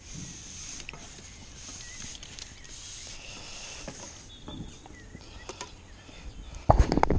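Quiet pond-side background with a couple of faint chirps, then about six and a half seconds in a sudden loud burst of splashing and knocking as a hooked fish is drawn into the landing net and lifted from the water.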